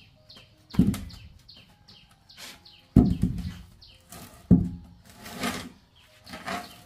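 Heavy wooden tree-stump section being rocked and walked across a concrete floor: about four dull thuds as it drops back onto its base, with a scrape near the middle, while small birds chirp in the background.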